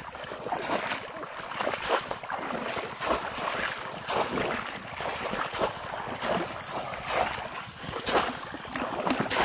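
Shallow water splashing and sloshing in irregular small splashes, as from people wading and working fishing traps in flooded field water.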